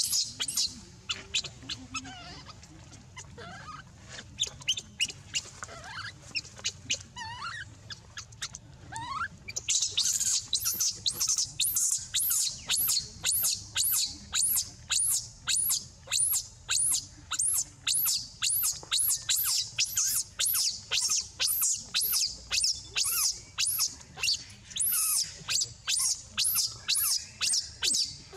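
Baby macaque crying: scattered high squeaks at first, then from about ten seconds in a long run of shrill, evenly repeated screams, about two a second.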